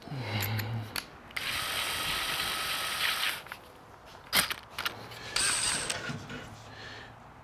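DeWalt cordless drill's keyless chuck being tightened onto a bit: the motor runs in short spurts while the chuck ratchets, with a sharp click about four seconds in.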